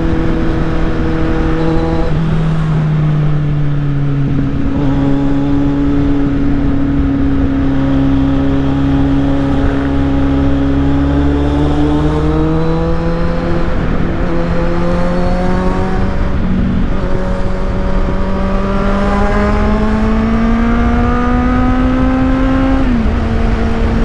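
Kawasaki Z800's inline-four engine running through an Akrapovic exhaust, heard from the rider's seat under way. The engine note climbs steadily as the bike pulls, and drops sharply twice, about two seconds in and near the end, as the revs fall at a gear change.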